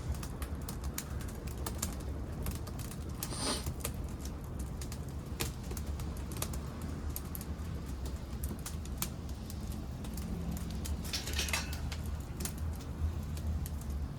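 Wood fire crackling in a pail-can secondary-combustion wood stove, the pieces of an old wooden futon chest popping and snapping in quick irregular clicks over a low steady rumble. Twice there is a short hissing burst.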